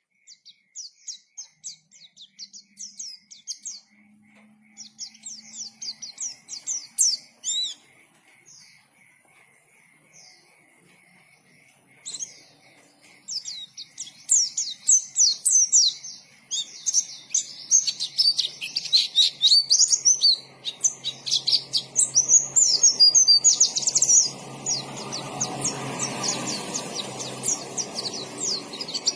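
White-eye (pleci) singing: quick strings of high chirps and twitters that thin to a few scattered notes in the middle, then a dense, fast warble through the second half. A steady rushing noise sits under the song for the last few seconds.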